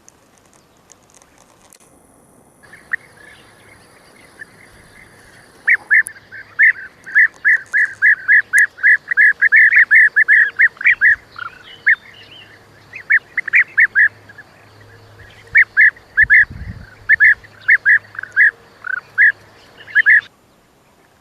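A bird calling over and over in quick runs of short, sharp notes, about two or three a second, starting about six seconds in and stopping abruptly near the end. A brief low thump comes about two-thirds of the way through.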